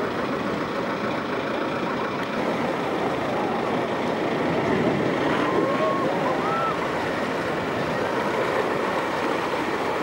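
A heavy reef-break wave crashing close by, with a steady roar of surf and whitewater rushing past the boats. A few short shouts rise over it about halfway through.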